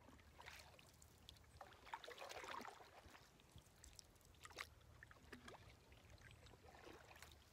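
Faint splashing, trickling and dripping of a canoe paddle stroking through calm lake water beside the canoe, over a low steady hum.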